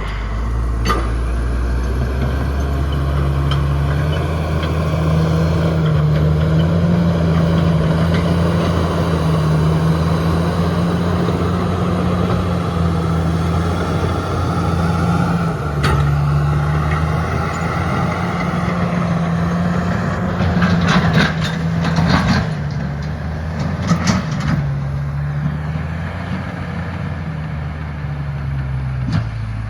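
Komatsu D68ESS bulldozer's diesel engine running hard under load, its pitch rising a couple of seconds in and dipping briefly twice later on. Several sharp knocks come about two-thirds of the way through.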